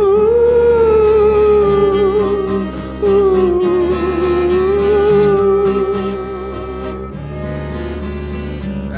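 Background music: an instrumental break in a song, with a held, wavering lead melody in two long phrases over a steady beat, getting quieter near the end.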